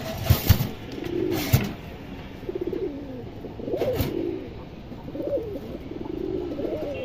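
Domestic pigeons cooing: a run of low, wavering coos about every second. Several sharp knocks in the first two seconds and one about four seconds in.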